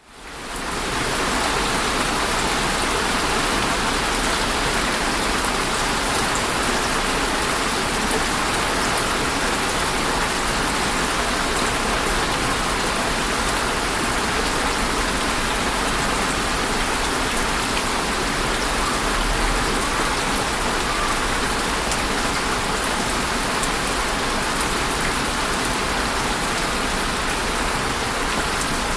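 Steady rain falling on a surface, a dense even patter of drops that fades in over the first second.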